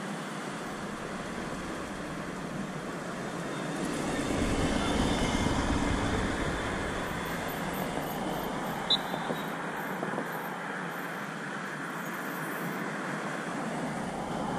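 Steady outdoor background noise of distant road traffic, swelling with a low rumble for several seconds about four seconds in. A single sharp tap sounds near the middle.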